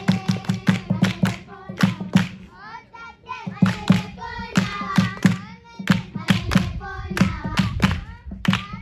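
Voices singing together over fast, rhythmic hand clapping, about four claps a second, with thumps beneath the claps.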